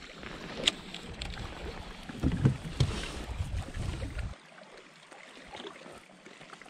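Water lapping at a kayak hull with wind rumbling on the microphone and a few light knocks and clicks from handling the boat and rod; the low rumble cuts off suddenly about four seconds in, leaving a quieter water hiss.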